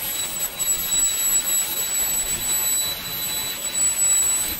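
Swiwin 300 RC model jet turbine running at a steady speed: a high whine held at a constant pitch over a loud rush of exhaust noise.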